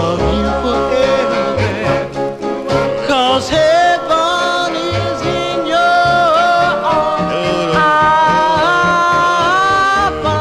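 A 45 rpm record playing a slow love song: long held, wavering melody notes over a stepping bass line, with no lyrics in this stretch.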